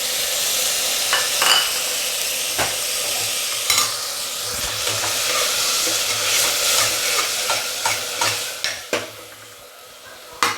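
Chopped tomatoes sizzling in hot oil in a frying pan, with a spatula clicking and scraping against the pan as they are stirred. The sizzle dies down near the end.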